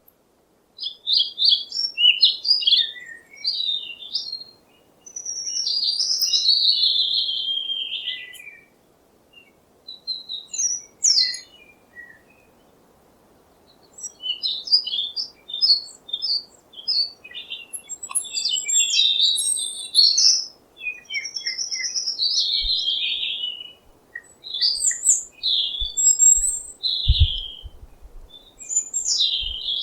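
A songbird singing in quick, varied phrases of high chirps, trills and gliding warbles, broken by short pauses. A few brief low thumps come near the end.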